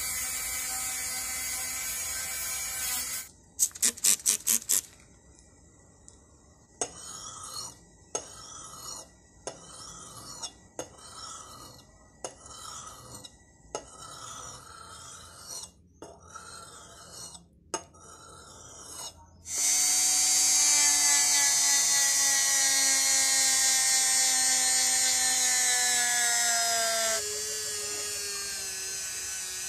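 Handheld rotary tool with a small abrasive bit running against a steel axe head, then cutting off with a quick run of sharp clicks. Next, the axe edge is rubbed on a sharpening stone in about ten even scraping strokes, roughly one every second and a half. The rotary tool then runs on the axe head again, its pitch sinking steadily as it bears on the metal.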